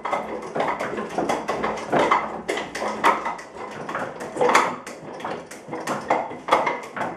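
Wooden Wing Chun training dummy being worked: rapid, irregular wooden clacks and knocks as forearms and hands strike its arms and trunk, several a second.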